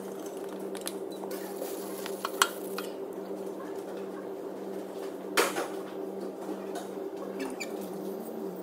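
Steady low workshop hum with a few metallic clinks and taps from handling tools under a car. Two sharp clinks stand out, about two and a half and five and a half seconds in.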